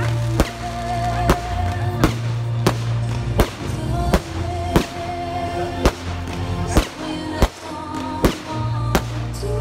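Fireworks display: firework shells bursting with sharp bangs roughly once a second, over loud music from musicals played for the show.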